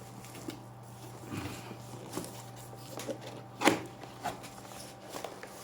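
Cardboard keyboard box and its packaging being handled and opened, with scattered small clicks and rustles and one sharper knock about three and a half seconds in.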